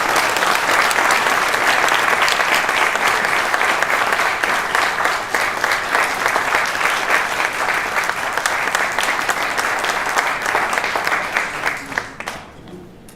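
Large audience applauding, a dense continuous clapping that dies away near the end.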